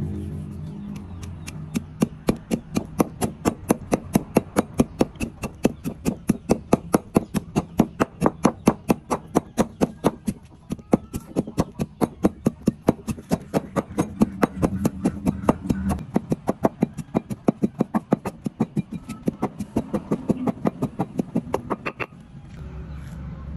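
Wooden pestle pounding dried shrimp in a stone mortar: an even run of dull knocks, about three a second, that stops about a second and a half before the end.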